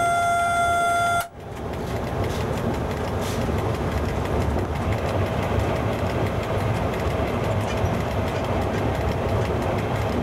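Horn of an FS E.656 electric locomotive sounding one steady note, cut off sharply about a second in. Then the steady rumble of the locomotive running along the track, heard from inside the cab.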